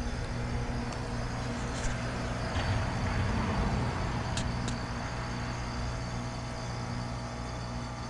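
American Standard Silver Series heat pump outdoor units running: a steady compressor hum with several level tones, with a brief swell of hiss a few seconds in.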